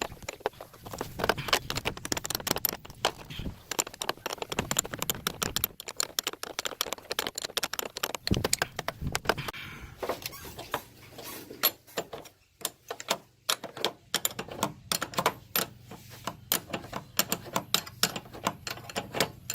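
Irregular metallic clicking, rattling and knocking of hand tools and the alternator being worked loose and pulled free from the engine bay of a Ford Taurus.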